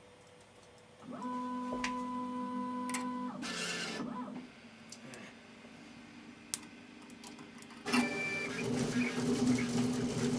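Rat Rig V-Core 3 3D printer running. A steady whine of a few tones starts about a second in, then comes a quieter stretch with a single click. From about eight seconds in, louder shifting motor tones begin as the toolhead prints on the bed.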